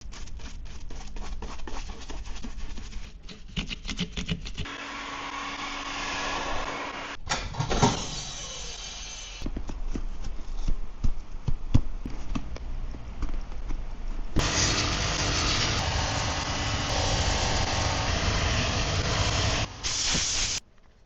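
Shoe-repair workshop sounds in quick cuts while old army boots are resoled: a motor-driven workshop machine running steadily, loudest for a stretch about two-thirds through, with sharp knocks and taps in between. It cuts off abruptly near the end.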